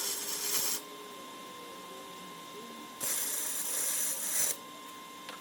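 Welding on steel flatbed crossbars: a welding arc hissing and crackling in two runs, the first stopping under a second in and the second lasting about a second and a half from about three seconds in.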